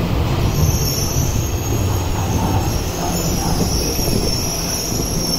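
Tokyo Metro Marunouchi Line 2000 series train rolling slowly alongside the platform as it brakes to a stop, its low running rumble joined about half a second in by a steady, thin, high-pitched squeal from the wheels and brakes.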